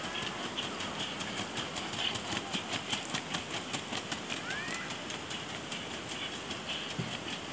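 Hooves of a Colombian gaited horse at the trocha: a quick, even run of hoofbeats on packed sandy ground.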